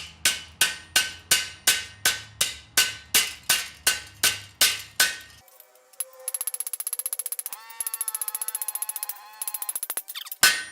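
Hand hammer striking steel on an anvil, about three ringing blows a second for some five seconds: detail being hammered into sheet-steel rose petals. After that comes a fast run of light metallic ticks with steady ringing tones for about four seconds, then another hammer blow near the end.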